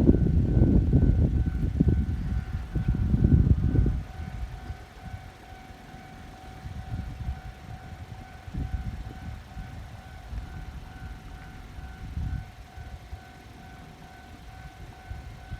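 Japanese level-crossing warning bell ringing, a steady, evenly repeating two-tone clang that signals approaching trains. A loud low rumble fills the first four seconds and fainter rumbling comes and goes later.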